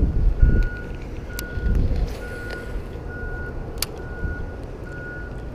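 A vehicle's backup alarm beeping about once a second, a steady high tone, over low rumble, with a sharp click about four seconds in.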